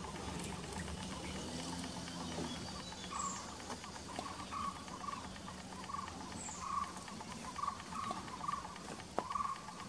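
Small forest animals calling: a run of short mid-pitched notes repeated many times from about three seconds in, and a thin high falling note roughly every three seconds, over a low steady hum in the first two seconds.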